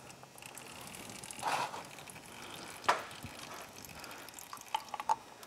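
Engine oil trickling from the opened oil filter housing on the crankcase of a Honda TRX400EX, with one sharp click about three seconds in and a few light taps near the end as the oil filter is handled.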